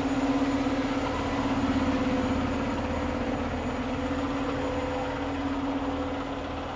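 A heavy diesel engine idling steadily: a low, even rumble with a constant hum over it.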